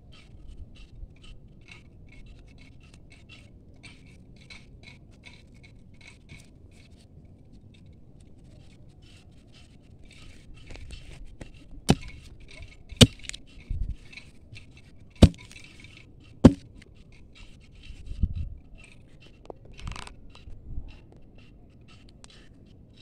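Ribbed steel digging bar stabbed down into soil and roots, about seven sharp hits roughly a second or so apart from about halfway through. Before that, only faint scratching and ticking.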